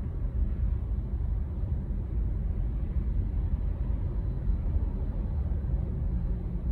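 Steady low rumble of a car's engine and tyres heard from inside the cabin while creeping forward in slow traffic.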